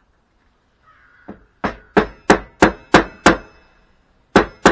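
Mallet blows driving a lathe center into the end of a cherry blank: a light tap about a second in, then six hard blows at about three a second, a short pause, and two more near the end.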